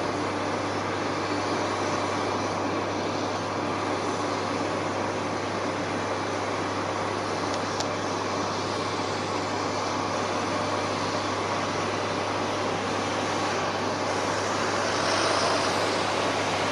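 Boeing 747-400 freighter's jet engines running at taxi power: a steady jet rumble and whine. Near the end a service truck passes close by and the sound swells briefly.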